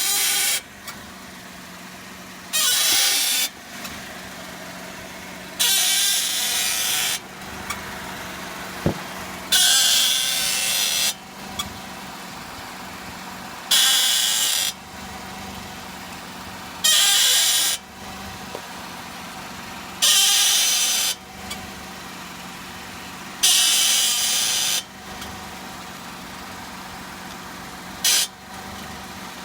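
Honda N-BOX front lower arm ball joint squeaking as the steering wheel is turned: about eight bursts, each about a second long and a few seconds apart, over a steady low hum. It is a worn ball joint that makes this noise even with its boot intact and no play, and it is cured by replacing the lower arm.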